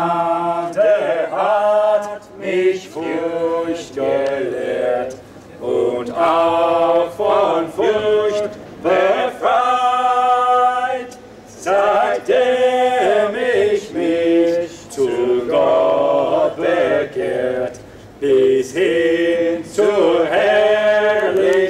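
A small group of voices singing a hymn together without accompaniment, in phrases of held notes with short breaks between lines.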